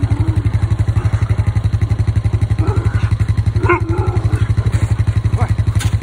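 An engine running steadily at idle with a fast, even throb. A few short high whines sound over it.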